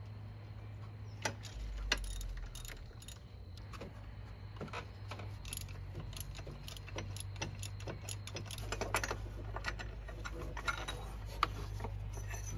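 Ratchet and wrench working idler pulley bolts loose, giving irregular metallic clicks and clinks that come thicker in the second half, over a steady low hum.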